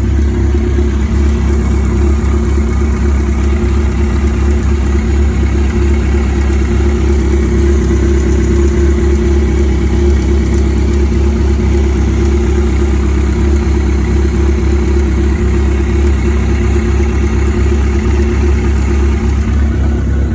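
Yamaha XJ6's inline-four motorcycle engine running steadily at an even, low speed.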